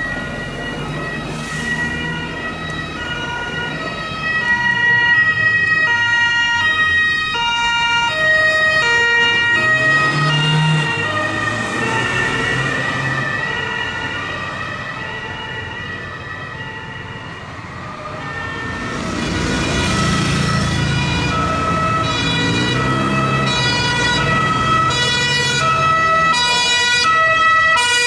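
Police car sirens sounding a two-tone wail that alternates between two notes, over engine and traffic noise. The sirens grow louder about four seconds in and again from about nineteen seconds as the cars come close.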